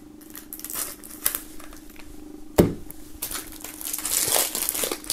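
Plastic shrink-wrap film being slit with a knife and peeled off a CD jewel case, crinkling, sparse at first and growing dense in the last two seconds. A sharp click sounds about two and a half seconds in.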